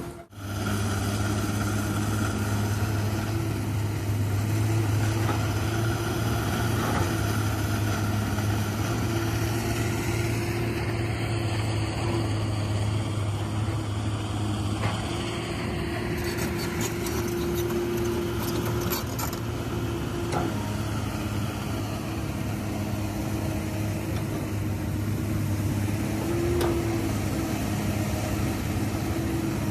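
Excavator diesel engine running steadily with a low, even hum, with a few light clicks and knocks partway through.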